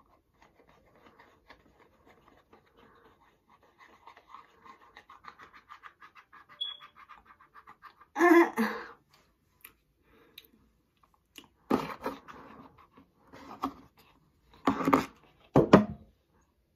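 A person licking a Slime Licker liquid roller candy, with a quick run of small wet licking and lip-smacking sounds. These are followed by several short, loud, breathy vocal bursts like pants or gasps, the first about eight seconds in and more toward the end.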